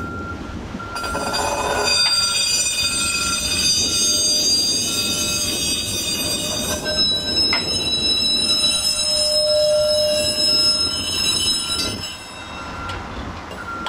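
PCC streetcar's steel wheels squealing on the rails as it rolls past, a high ringing squeal from about a second in until near the end. A short beep repeats throughout.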